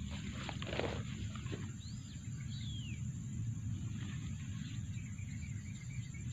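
Outdoor field ambience: a steady low rumble with a few soft rustles in the first second, and a bird giving two short swooping whistles about two seconds in, then faint chirping.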